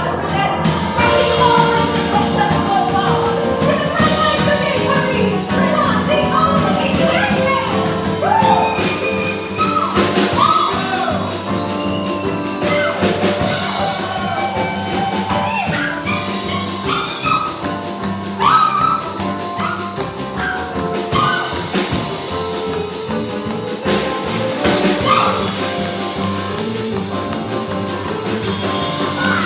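Music with a drum-kit beat under a melody line, the accompaniment for a stage number.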